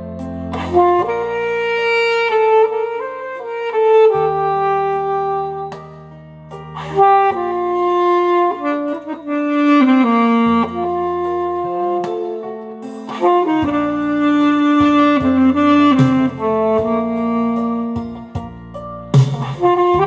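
Alto saxophone playing a slow, legato song melody of sustained notes over a backing track with a bass line and light percussion.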